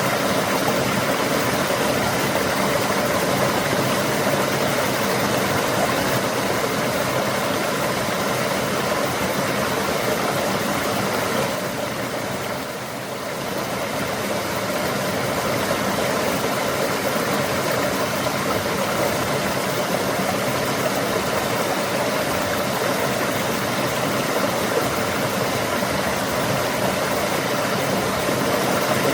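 Flowing water rushing steadily, a dense even wash of sound that dips briefly in level about twelve seconds in.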